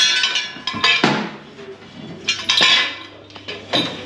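Metal tools and parts clanking and clinking, about four strikes, each with a brief metallic ring.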